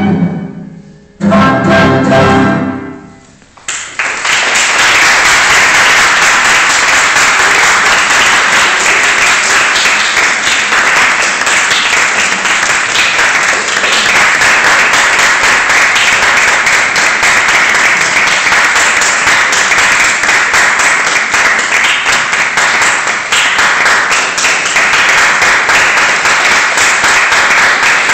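The final chord of a clarinet, cello and piano trio rings out and dies away. About four seconds in, an audience breaks into steady applause.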